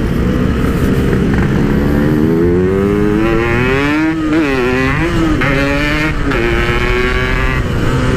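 Yamaha RX-King 135cc two-stroke single on a PK1 exhaust accelerating hard. The engine pitch climbs for a couple of seconds, dips briefly twice midway, then holds at high revs.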